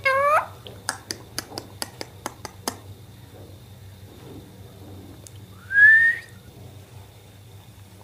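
Alexandrine parakeet giving a short rising call, followed by a quick run of about ten sharp clicks. Near the middle comes a single clean rising whistle, the loudest sound.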